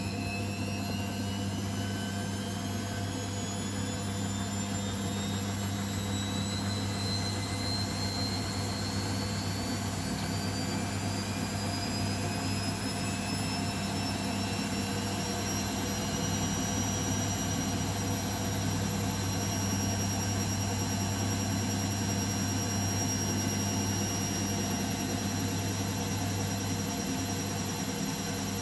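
Beko WML 51211 EL+ washing machine accelerating into a spin: the motor's whine climbs steadily in pitch for about sixteen seconds, then holds at spin speed over a constant low hum.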